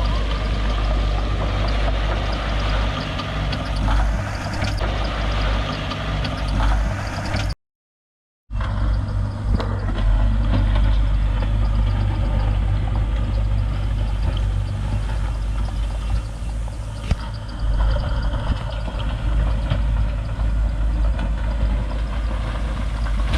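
Heavy construction machine's diesel engine running steadily, a deep rumble with clatter over it. The sound cuts out completely for about a second a third of the way in, then resumes.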